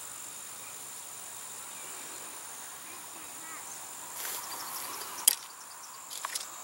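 Crickets shrilling steadily on two high tones. Just after five seconds in, one sharp snap as the elastic stick catapult releases and launches the indoor glider, followed by a few small clicks.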